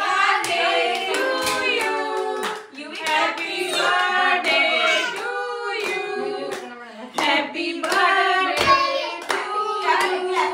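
A group of people singing together, with hands clapping along in a steady beat.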